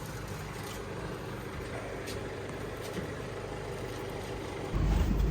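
A vehicle engine idling steadily with a low hum, and a much louder low rumble starting suddenly near the end.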